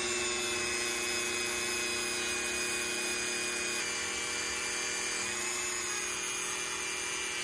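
Handheld Dremel-style rotary tool running steadily at high speed, its small wheel grinding the broken tip of a Spyderco Dragonfly 2 blade to reprofile the point. The pitch wavers slightly about two-thirds of the way through.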